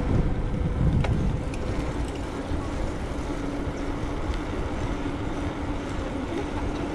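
Low rumble of wind on the microphone and road noise from a bicycle being ridden, with a faint steady hum and a few light clicks.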